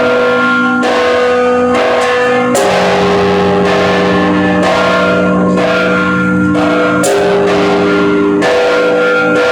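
Church bells of St John's Co-Cathedral, bells 1, 3, 4, 5 and 6, rung together. Strikes of different pitches follow one another in an uneven rhythm, roughly one or two a second, and each tone rings on under the next.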